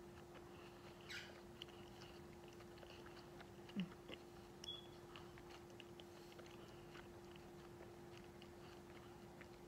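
Faint closed-mouth chewing of stale marshmallow Peeps: soft, sticky mouth clicks and smacks, with a few louder ones about a second in and around the middle, over a steady low hum.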